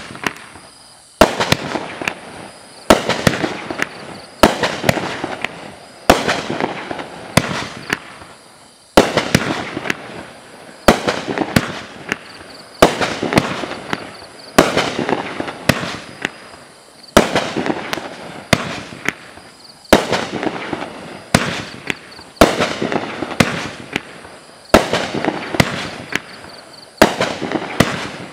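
Dominator 'Nishiki Thunder' 20-shot, 200-gram fireworks cake firing in steady sequence. There is a sharp bang about every second and a half, and each one trails off over the next second.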